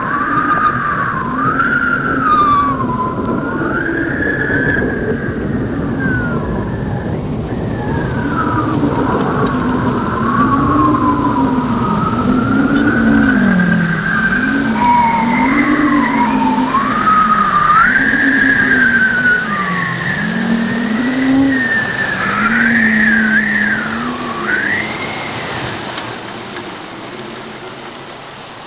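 Show soundtrack of slow, sliding tones in two layers, one low and one high, bending up and down over a background hiss, fading over the last few seconds.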